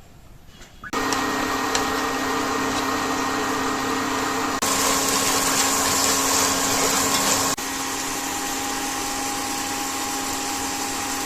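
Small electric food chopper motor starting about a second in and running steadily, mixing the seasoned pork filling. The sound steps up abruptly about four and a half seconds in and drops back about three seconds later.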